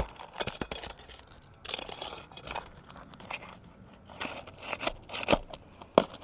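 Nails being pried out from under asphalt shingles: scattered sharp clicks and knocks of a metal tool with a scraping, crunching stretch about two seconds in. These are ring-shank roofing nails that are holding tight and hard to pull.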